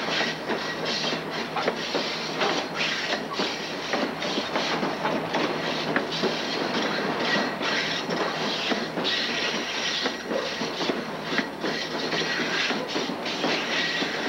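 A moving freight train heard from aboard: a steady rumble of wheels on rail with frequent irregular clacks and knocks.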